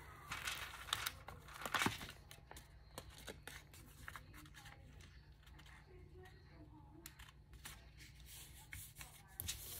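Paper handling: a glued paper sheet being peeled back and repositioned. There are several sharp crinkles and light taps in the first two seconds, fainter rustling after that, and a few more crinkles near the end.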